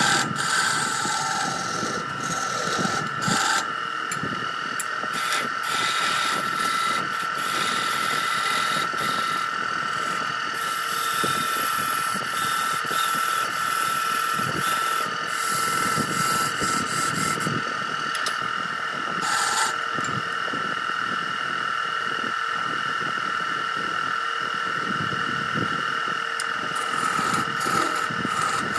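Wood lathe running with a steady whine while a hand-held turning tool scrapes and cuts the spinning wood of a tiered fruit dish, with irregular rasping and ticking from the cut.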